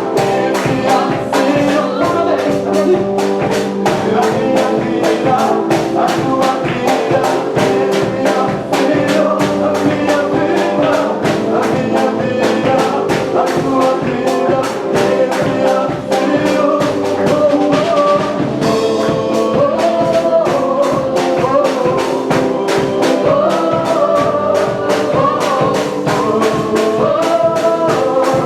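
Band music with a fast, steady beat under sustained instrumental melody.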